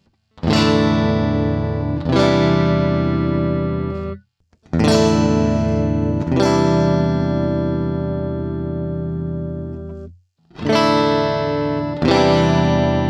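ADOLA electric guitar strumming chords, each chord left to ring. The chords come in pairs, with the strings stopped briefly about four seconds in and again about ten seconds in.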